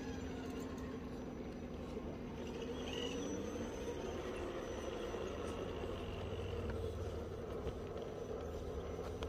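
An RC crawler's electric motor and gearbox whining steadily as it drives, the pitch rising about three seconds in.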